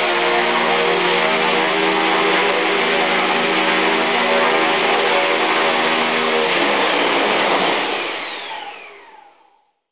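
Griffin 450 RC helicopter on a training stand, its motor and rotor running at a steady speed. About six and a half seconds in the pitch drops as it spools down, and the sound dies away with falling whines just before the end.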